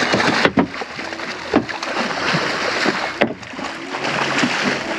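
Hooked shark thrashing at the side of a boat, churning the water into continuous splashing, with a few sharp knocks along the way.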